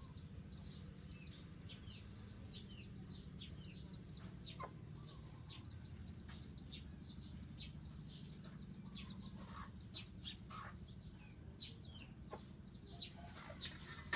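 Chickens peeping and clucking: many short high chirps in quick succession, with a few lower calls, over a low steady hum.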